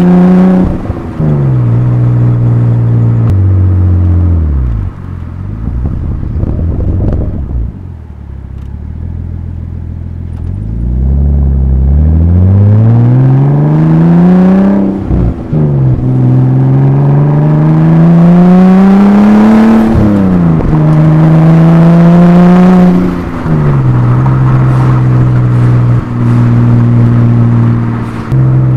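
Exhaust of a Nissan RB25DET Neo turbocharged straight-six in an R31 Skyline, heard at the tailpipe. The revs fall away to near idle as the car slows, then climb in two pulls. Each pull ends in a sudden drop in revs as the car changes up, and the engine settles into a steady cruise near the end.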